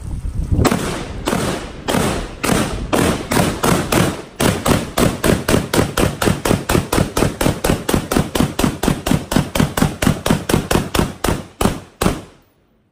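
A gun fired rapidly at an outdoor range: dozens of sharp shots at roughly four a second in a fast, even string, stopping abruptly about twelve seconds in.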